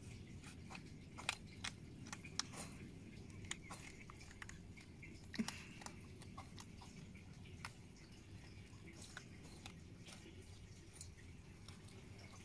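Hedgehogs chewing and crunching food at close range: faint, irregular crisp clicks and crunches, thickest in the first half, with one sharper crack about five seconds in.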